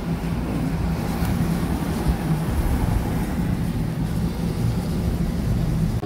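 Steady road noise inside a moving car, with engine and tyres running on a wet road under a low steady hum.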